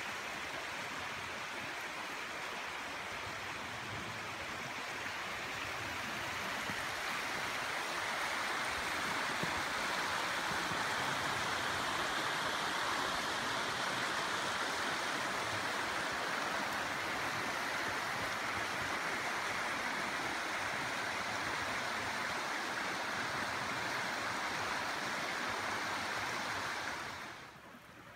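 Creek water running steadily over rocks, growing a little louder after several seconds and cutting off shortly before the end.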